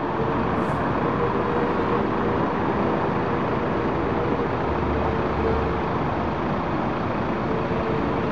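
Steady city traffic noise: cars driving along a busy avenue.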